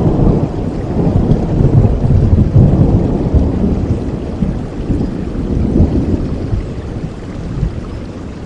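Rolling thunder rumbling over steady rain, loudest in the first few seconds and fading away toward the end.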